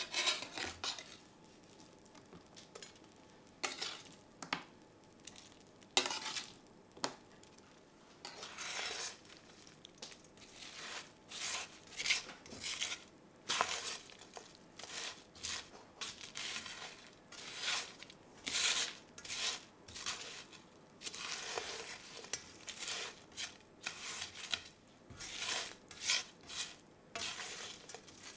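Metal tongs tossing roasted courgette slices, green beans and halloumi in a frying pan: irregular scrapes and clinks of the tongs against the pan. The strokes are sparse at first and come thick and fast from about eight seconds in.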